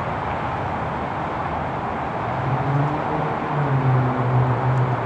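Jet airliner on landing approach passing low overhead: a steady rushing engine noise, joined about halfway in by a low drone that grows louder and sinks slightly in pitch.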